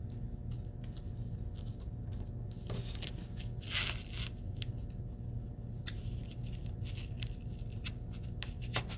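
Aluminium HVAC duct tape crinkling and scraping under the fingers as it is pressed and folded around the edges of a PVC sign board, with scattered small clicks and a louder rustling scrape about four seconds in, over a steady low hum.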